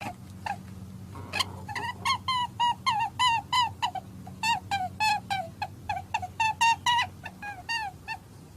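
A small animal giving a rapid run of short, high squeaky chirps, several a second and each bending down in pitch, over a low steady hum.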